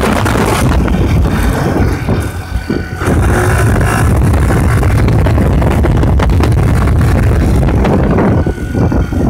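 Scooter engine fitted with a 100cc big bore kit running under way, with wind buffeting the microphone; the sound eases off briefly about two seconds in, then picks up again.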